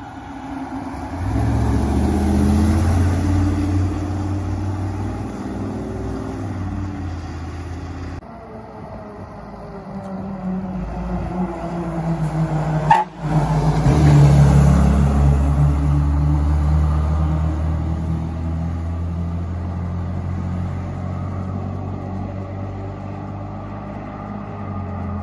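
Fire trucks' diesel engines driving past one after another, the engine sound swelling and shifting in pitch as each truck goes by. The sound cuts off abruptly twice, with a sharp click at the second break.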